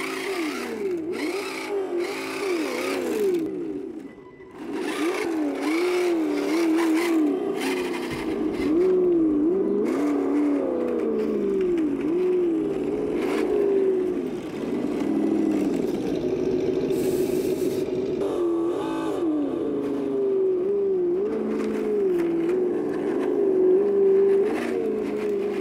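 1/10-scale RC car's motor whining as it is driven, the pitch rising and falling over and over with the throttle.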